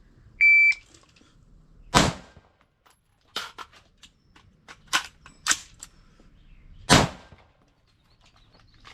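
Shot timer's start beep, then a single shot from a Palmetto State Armory AR rifle about a second and a half later, several seconds of clicks and clatter from a magazine change, and a second rifle shot: one round, reload, one round.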